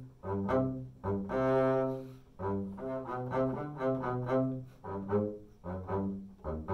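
Unaccompanied double bass played with the bow: a run of short, separated notes, with one longer held note about a second in.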